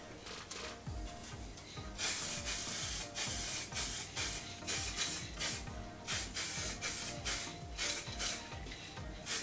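Weld-through primer being sprayed from a spray can onto sheet-metal patch panels, in short hissing bursts about two a second that start about two seconds in.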